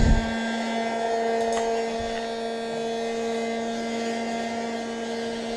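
Electric heat gun running, its small fan motor giving a steady hum over the hiss of the air it blows, as it heats the plastic of a dented car bumper to soften it. A knock at the very start.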